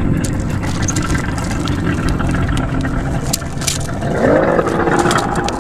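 Engine running steadily. About four seconds in its pitch rises, as when revving up, then holds.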